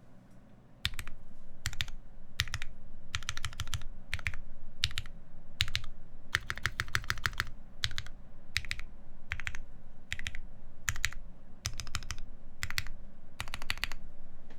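Typing on a custom mechanical keyboard with lubed Lavender switches (Krytox 205g0, 65 g springs, switch films), a full FR-4 plate and GMK keycaps. The keys are struck in quick runs like words with short pauses between, starting about a second in.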